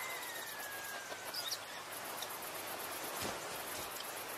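Outdoor lagoon ambience: a single whistled bird call falling in pitch near the start, a few short high chirps, and a steady hiss of insects with fine high ticking. A soft thump comes about three seconds in.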